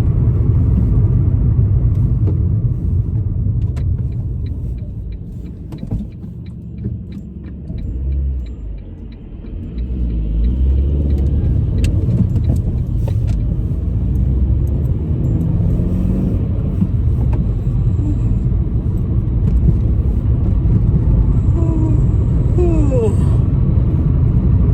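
Car engine and tyre rumble heard from inside the cabin while driving. The rumble drops for a few seconds about a third of the way through, then rises again. A run of faint ticks comes about four seconds in.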